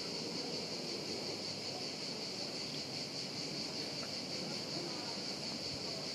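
A steady, unbroken high-pitched insect drone, like a chorus of cicadas, over a faint low outdoor rumble.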